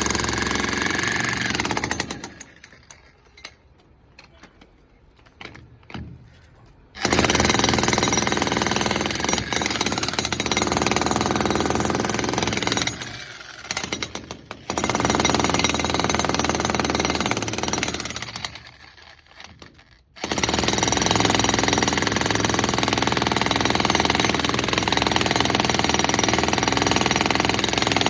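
Concrete breaker (jackhammer) hammering with a rapid, continuous rattle. It runs in stretches of several seconds, with short pauses between them.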